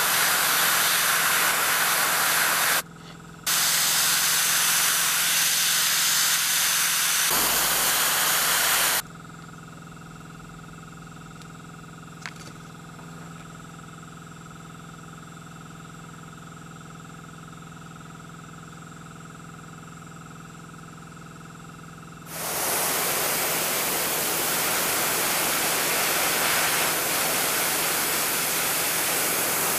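Airbrush hissing as it sprays paint onto a fishing lure, in bursts: about three seconds, a brief break, about five more seconds, then a long pause with only a steady low hum, and spraying again from about two-thirds of the way through.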